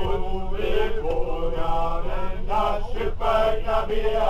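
Several men's voices singing a chant together, held notes running on without a break, over a low steady rumble.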